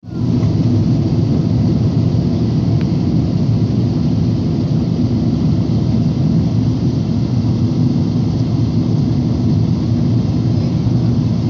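Steady low rumble of a Boeing 777-300ER's jet engines and rushing airflow, heard from inside the cabin at a window seat during the descent to land.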